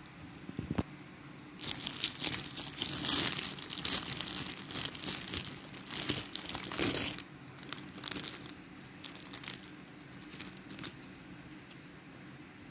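Clear plastic bag of fish crackers crinkling as it is handled, busiest in the first half, then only faint scattered crackles.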